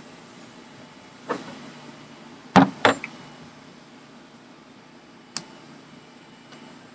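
A few sharp knocks and clicks from handling the saw and work gear: a single one, then a loud pair close together, then one more. The chainsaw engine is not running.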